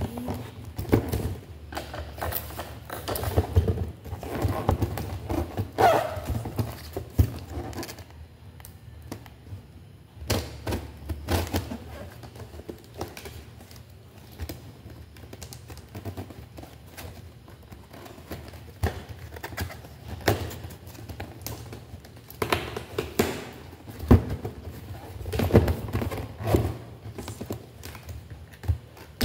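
Cardboard box being handled and opened: irregular knocks, thumps and rustles, with packing tape pulled away and scissors cutting at the box near the end.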